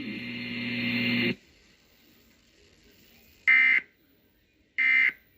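A steady buzzing tone grows louder and cuts off about a second and a half in. After a pause come two short, shrill electronic data bursts about 1.3 seconds apart: Emergency Alert System end-of-message (EOM) tones closing the broadcast alert.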